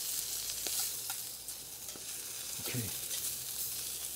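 Thick pork galbi sizzling as it fries in plenty of oil on a hot griddle, a steady hiss with a few faint clicks in the first second or so.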